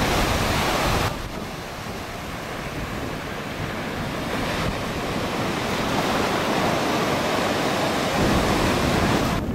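Ocean surf washing and breaking, with wind rumbling on the microphone. The noise drops abruptly about a second in, then builds gradually back up toward the end.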